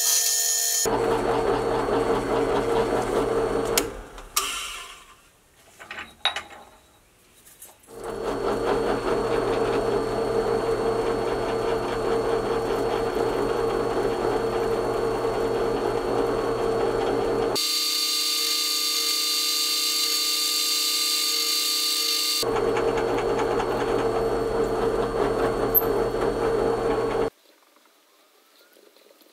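Drill press running and drilling into an aluminium block: a steady motor hum with cutting noise, cut off abruptly at several points, with a quieter spell of a few clicks a few seconds in. For about five seconds in the middle a higher, thinner sound with several steady tones and no low hum takes its place, and near the end everything drops to a faint murmur.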